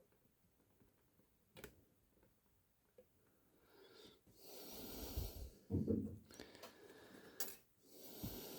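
A man breathing heavily close to the microphone: long breathy exhales, with a short low grunt or hum in the middle. A few faint clicks of handling are heard before it.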